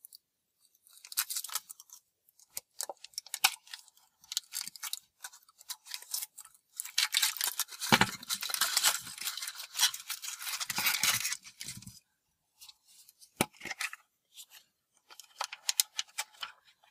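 Foil wrapper of a Kinder Surprise chocolate egg crinkling and tearing in short bursts as it is peeled off, with a denser stretch of crinkling and a dull knock about eight seconds in as the chocolate shell breaks. Later come a couple of sharp clicks and the crinkle of the yellow plastic capsule and the toy's plastic bag being opened.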